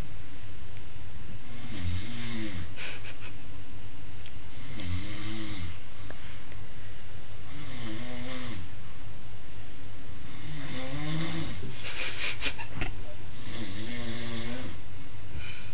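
A person snoring in a slow rhythm, about five snores roughly three seconds apart, over a steady background din. Brief clatters come about three and twelve seconds in.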